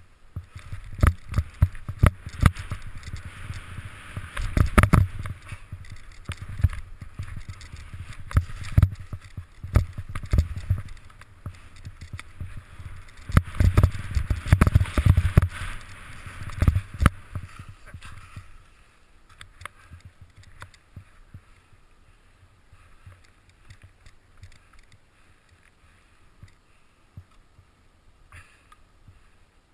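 Skis running through soft powder snow, a hiss broken by frequent knocks and thumps on the camera. About two-thirds of the way through it drops to a faint, smoother hiss.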